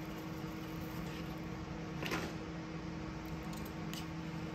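Steady low hum of a kitchen appliance or fan, with one brief rustling knock about two seconds in and a couple of faint ticks near the end.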